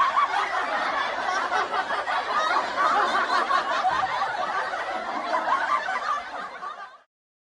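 Laughter meme sound effect: people laughing and snickering continuously, fading out and stopping about seven seconds in.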